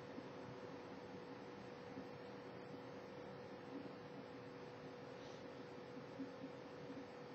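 Faint steady hum, one constant mid-pitched tone over a light hiss.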